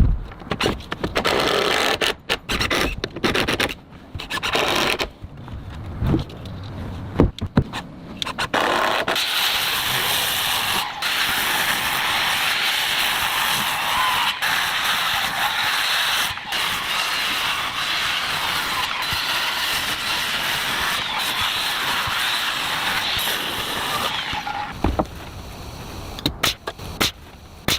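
Timber building work: irregular knocks and scrapes, then a steady rushing, scraping noise from about nine seconds in that lasts some fifteen seconds and stops abruptly, followed by a few sharp clicks.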